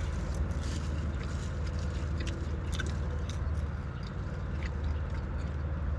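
Close-up chewing and biting of a chili cheeseburger, with small wet, squishy mouth sounds over a steady low hum.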